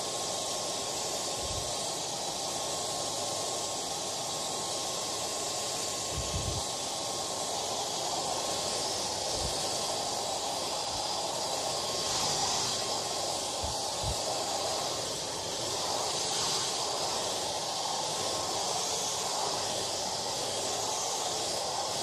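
Hair dryer running steadily: an even rush of blowing air with a faint, constant whine from the motor, and a few soft low bumps now and then.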